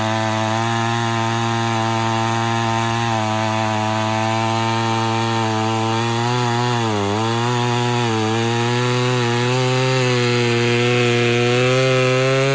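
Homelite Super XL Automatic two-stroke chainsaw running at high revs while cutting wood. The engine note dips twice, about halfway through, as it bogs under load, then climbs steadily.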